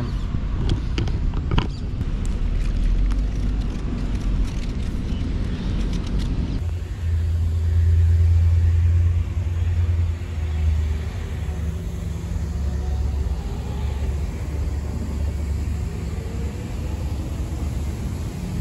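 Low rumble of road traffic, with one vehicle's engine loudest about seven to nine seconds in. Scattered clicks and rustles come in the first several seconds.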